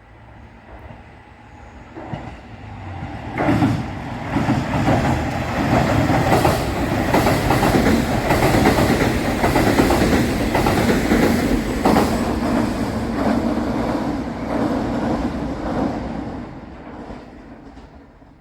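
A Suigun Line diesel railcar train passing, its wheels clacking over the rail joints. It grows from faint to loud over the first few seconds, stays loud for about twelve seconds, then fades away near the end.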